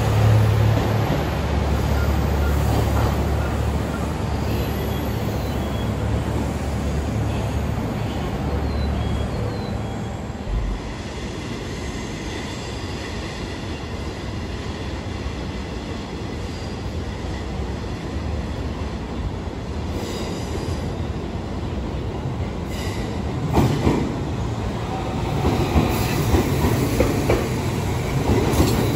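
JR East HB-E210 diesel-hybrid trains. The first gives a heavy low hum as it pulls out, fading about ten seconds in. Near the end a second one comes in, its wheels squealing and clattering over the rail joints.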